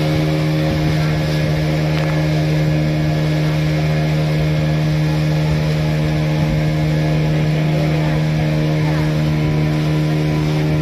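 The engine of a passenger tourist boat running at a steady cruising speed, a loud constant low drone with an unchanging pitch.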